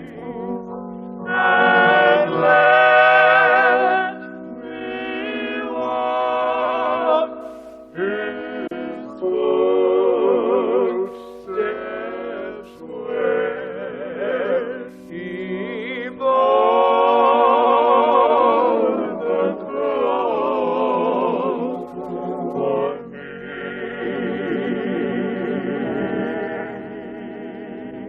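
Church choir singing a worship song with heavy vibrato, in phrases of a few seconds separated by short breaths. The sound is dull and thin, cut off above the upper treble.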